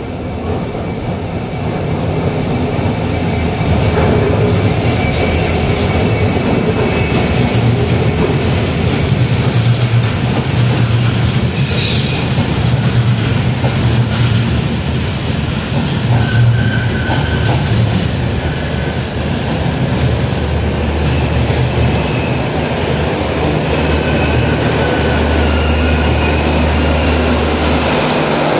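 Passenger train running into a station alongside the platform: a steady rumble from the locomotive and coaches that grows louder over the first few seconds, with thin high wheel squeals coming and going.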